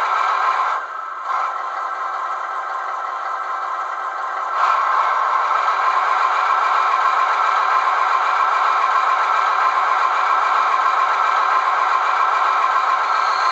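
Recorded diesel engine sound of a class 298 diesel-hydraulic shunting locomotive, played by a model locomotive's DCC sound decoder through its small speaker, so it is thin with no deep bass. It runs steadily with a clattering, dips briefly about a second in and gets louder about four and a half seconds in.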